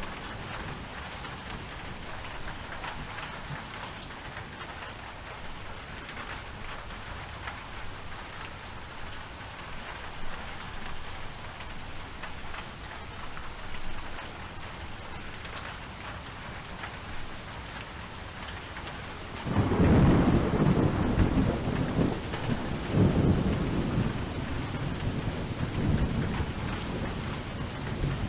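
Steady rain falling, a hiss with fine patter of drops. About two-thirds of the way in, thunder breaks in and rolls on in several loud swells of low rumble.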